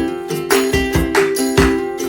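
Background music: a bright tune of plucked notes over a steady, regular beat.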